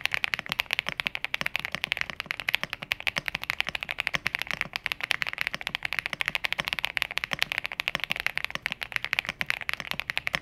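Fast typing on an iLovBee B87 tenkeyless mechanical keyboard in a sound test: a dense, even stream of key clacks. Its thick molded plastic bottom case is what is said to give it its solid sound.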